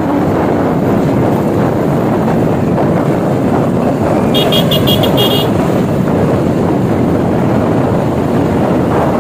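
Black Hawk helicopter flying low overhead: a steady, loud rush of rotor and engine noise. About four and a half seconds in comes a quick run of five short high beeps.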